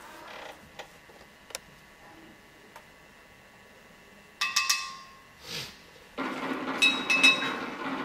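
Faint clicks, then a bright glassy clink with a short ringing about four seconds in. From about six seconds, a steady rushing noise with a few more clinks on top.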